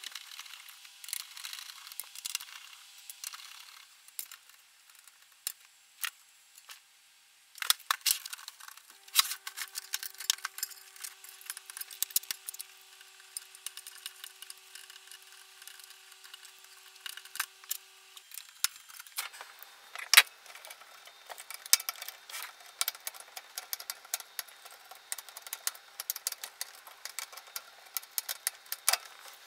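Scattered small clicks, knocks and scrapes as hands work inside the open metal chassis of a Technics SU-V50 amplifier, pulling at its wiring connectors during disassembly.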